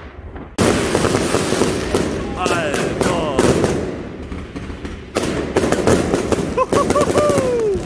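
Fireworks going off overhead. After a quiet first half-second, a sudden loud, dense barrage of bangs and crackling starts, eases about four seconds in, and picks up again about a second later.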